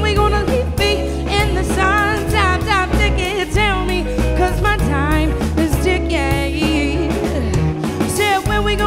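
Live pop-soul band playing: bass and drums holding a steady groove, with a wavering, pitch-bending melodic line over it, most likely the singer's wordless vocal runs.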